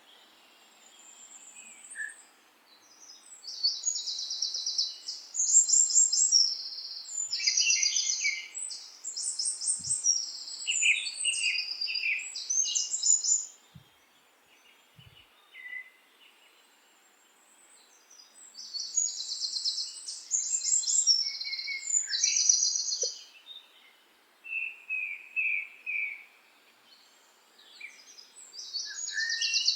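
Songbird song: high-pitched phrases of rapid trills and chirps, coming in bursts separated by pauses of a few seconds.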